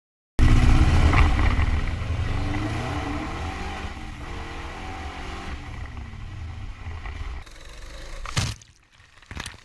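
A motor or engine running with a deep rumble, starting suddenly and slowly fading, then cut off sharply about eight and a half seconds in, followed by a couple of clicks.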